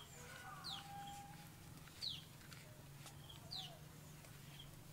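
Faint bird calls: three short, high falling chirps about a second and a half apart, with a few softer calls between, over a steady low hum.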